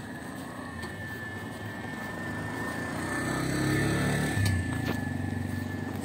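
A motor vehicle engine passing close by, growing louder to a peak about four seconds in and then easing off.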